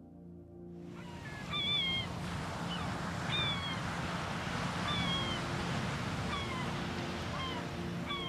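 Gulls calling, short falling cries repeated about once a second, over a steady wash of sea surf.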